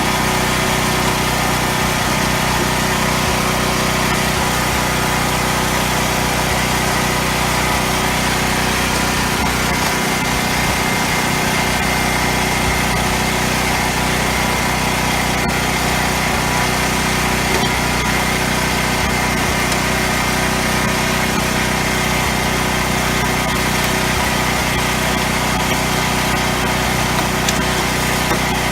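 Small engine running steadily at one constant speed, a continuous even hum with no changes in pitch or load.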